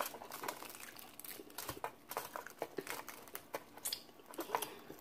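Close-up eating sounds of crispy fried chicken being bitten and chewed: irregular crunches, crackles and crinkles of the breaded skin, with wet mouth smacks.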